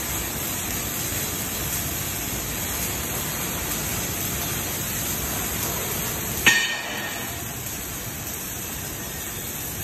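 Robotic wire-fed (MIG) welding arc giving a steady hiss. About two-thirds of the way through there is a single sharp metallic clink.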